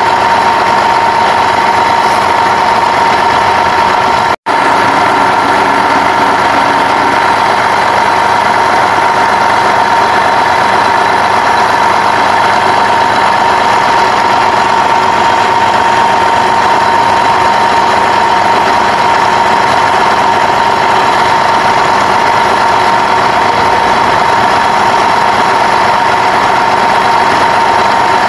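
Steady, loud truck engine idling sound, laid over the picture as a sound effect, with a brief cut-out about four and a half seconds in.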